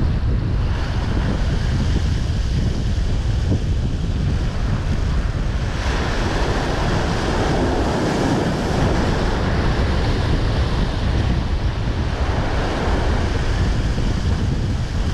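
Rough sea surf breaking and washing over rocks, with wind buffeting the microphone in a steady low rumble. A wave surges louder about six seconds in and eases off a few seconds later.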